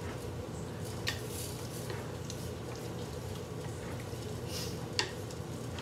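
A spoon stirring thick chili in a pot, with two sharp clicks of the spoon against the pot, about a second in and near the end, over a steady low hum.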